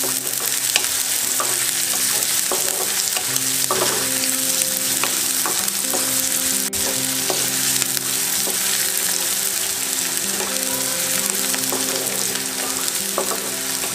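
Sliced onions sizzling in hot oil in a kadhai, stirred with a wooden spatula that scrapes and knocks against the pan every second or so. The onions are frying to brown. Soft background music plays underneath.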